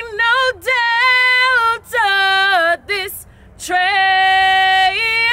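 A woman singing solo a cappella in a clear, high voice, holding long notes and sliding between them. There is a short break for breath about three seconds in, then one long held note.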